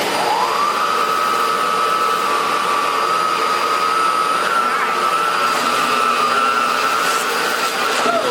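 Eureka Floor Rover upright bagless vacuum cleaner running, its motor whine rising in pitch during the first second and then holding steady. A few sharp clicks come near the end.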